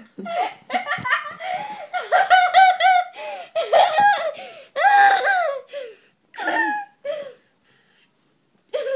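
Young girl laughing hard while being tickled: quick high-pitched bursts of giggling that stop about seven seconds in.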